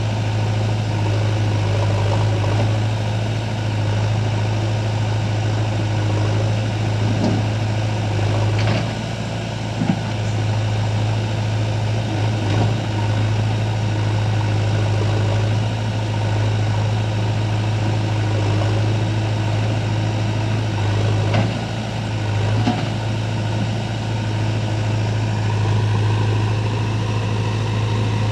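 Heavy diesel engine running steadily at low revs, with a few brief knocks now and then.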